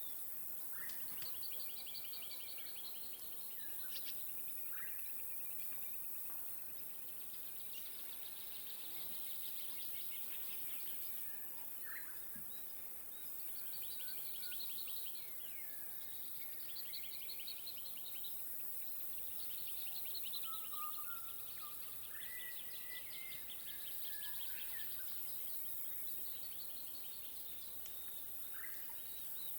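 Lakeside wildlife ambience: repeated fast, pulsed trills come and go every few seconds, with short bird chirps and whistles scattered between them, over a steady high hiss of insects.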